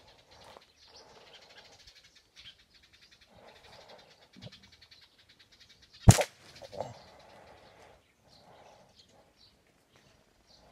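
Small birds chirping in the trees, then about six seconds in a single sharp crack of a slingshot shot, followed by a smaller knock under a second later.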